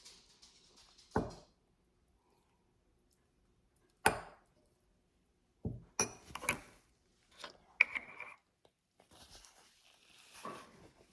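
Scattered sharp knocks and taps on a hard surface: one about a second in, another about four seconds in, then a cluster of several between six and eight seconds in.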